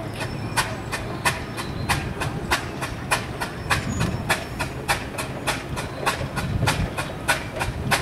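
Steam road engine's exhaust beating steadily at about three sharp chuffs a second over a low mechanical rumble, the sound of the engine working under load.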